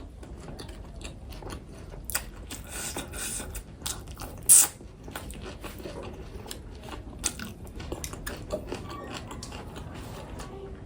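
Close-up eating sounds: chewing and biting with small crackly clicks, and one louder short sound about four and a half seconds in.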